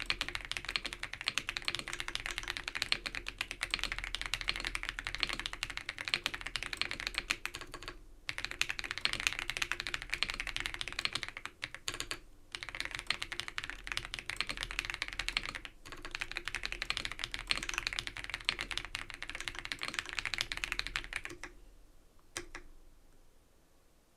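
Typing test on an Abko AK100 mechanical keyboard with Baby Blue switches: fast, continuous keystrokes with brief pauses. The typing stops a few seconds before the end, apart from a couple of last single key presses.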